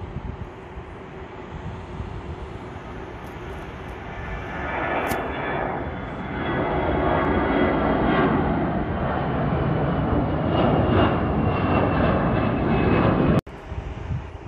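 Jet engines of a Eurowings Airbus A320-family airliner at takeoff thrust as it climbs away. The noise builds from about four seconds in and stays loud, with a faint high whine over it. It cuts off abruptly near the end, where a quieter background takes over.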